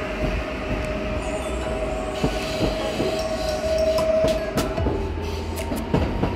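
Electric passenger train moving through a station with a steady high whine. From about two seconds in, its wheels click over the rail joints.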